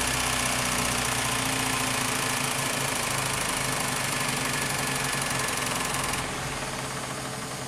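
A motor or engine running steadily with a hum; about six seconds in it becomes quieter and duller.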